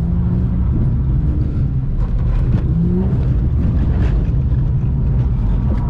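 Ford FG Falcon heard from inside the cabin while it slides on a wet skid pan: a steady, loud low engine and road rumble, with the engine note rising briefly about two and a half seconds in.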